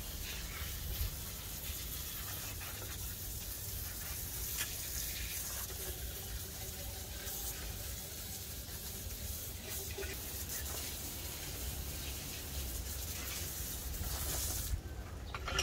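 Steady hiss over a low rumble, with a few faint taps; the hiss cuts off suddenly near the end.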